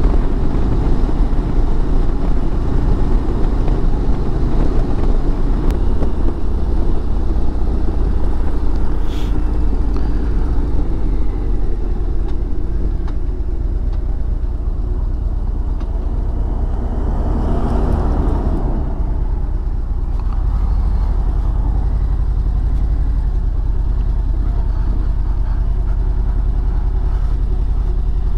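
A Harley-Davidson Ultra Limited touring motorcycle's V-twin engine running on the move, along with road noise. The sound becomes steadier and a little quieter about two-thirds of the way in.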